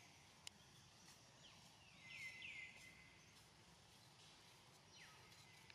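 Faint forest background with a bird giving short, high, downward-sweeping call notes, a cluster about two seconds in and a couple more near the end. A single sharp click about half a second in.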